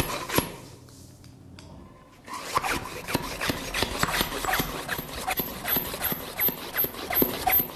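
Rubber hand blowout bulb pumped repeatedly down a drilled anchor hole in concrete, giving a quick run of breathy air puffs with short squeaks, mostly from about two seconds in. The puffs are blowing drill dust out of the hole to clean it before the chemical mortar is injected.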